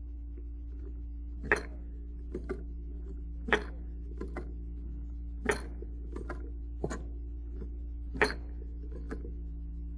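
Browning cloth belt loader worked by its hand crank, loading cartridges into a cloth machine-gun belt: four sharp metallic clacks about two seconds apart, with lighter clicks between them.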